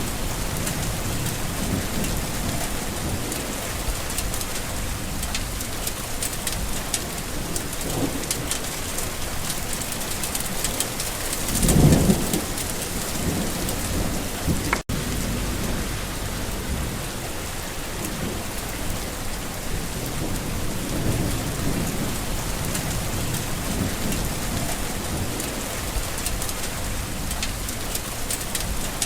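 Steady summer rain falling on surfaces, with low rolls of thunder. The loudest thunder rumble comes a little before halfway through. The sound breaks off for a split second just after it.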